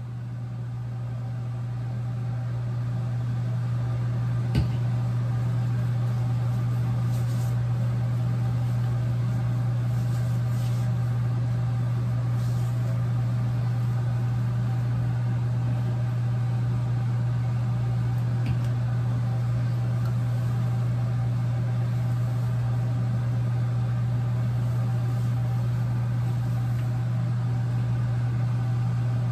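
A steady low-pitched hum that swells over the first few seconds and then holds even, with a few faint clicks over it.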